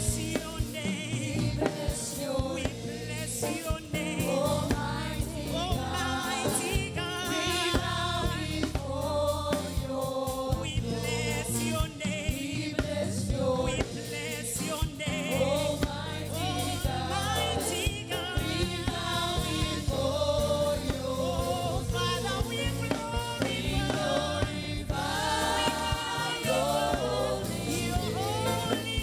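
Gospel worship song sung by a group of voices with instrumental backing.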